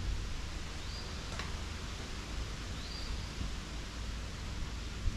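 Dog slicker brush rustling through a miniature donkey's ear hair, under a steady hiss with a low rumble. Two short, high bird chirps, about one second in and about three seconds in.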